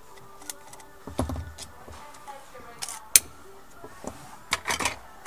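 Light clicks and clatter of small airsoft gearbox parts and tools being handled on a workbench, with one sharp click about three seconds in.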